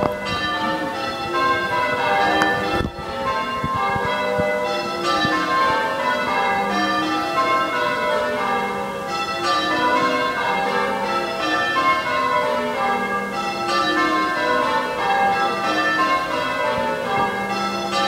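A ring of six church bells being rung in changes, struck one after another in a continuous stream, each row running down from the highest bell to the lowest.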